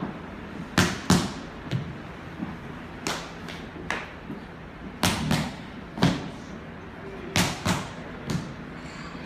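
Loud stomps on a hard floor in a slow, uneven rhythm, often in pairs about a third of a second apart, about a dozen in all.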